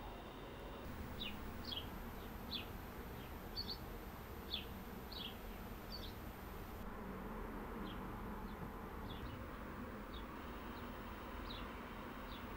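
Small birds chirping: short, high, down-slurred notes at irregular intervals, over a steady low background hiss.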